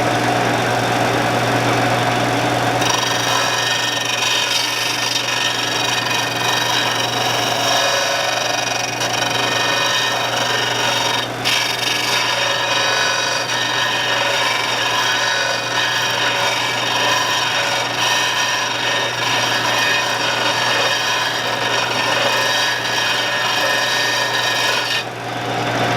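Shopsmith Mark V running with a medium-grit abrasive sharpening disc, a large lathe gouge held against it in a sharpening guide: a steady grinding hiss over the machine's hum. The grinding starts about three seconds in, breaks off briefly near the middle, and stops a second before the end.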